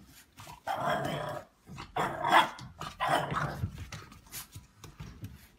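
A puppy growling and giving short yaps at a cat, in several rough bursts over the first few seconds.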